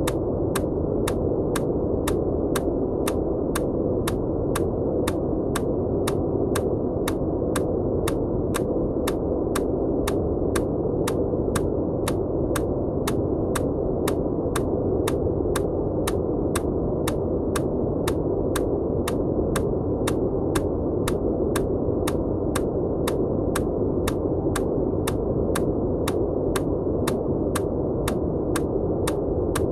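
Steady, muffled white-noise hiss under a regular, evenly paced click, a little under two a second: the EMDR bilateral-stimulation tick.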